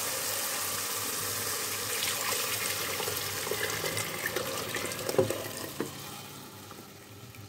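Spiced tomato masala sizzling in hot oil, then starchy rice-boiling water poured from a jug into the pan, splashing over the frying paste; the sound fades toward the end.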